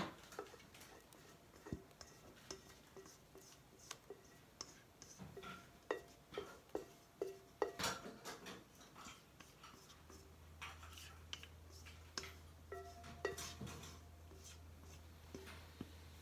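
Faint, irregular scraping and tapping of a silicone spatula against a stainless steel mixing bowl as cake batter is scraped out into a baking pan.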